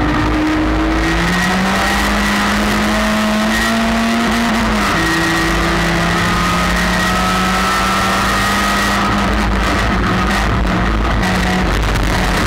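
Stock car's race engine at full song, heard from inside the cockpit. The pitch climbs for the first few seconds, drops about five seconds in, then holds steady. A rougher, clattering noise joins in over the last few seconds.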